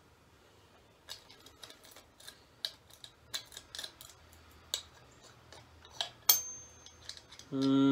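A key being fiddled into a small red plastic lock: scattered light clicks and ticks of key and plastic, with one sharper click about six seconds in. A brief hummed voice near the end.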